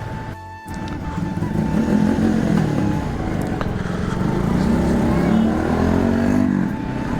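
Motorcycle engine running on the move, its pitch rising and falling with the throttle, with a dip just after the start. A simple background music melody plays over it.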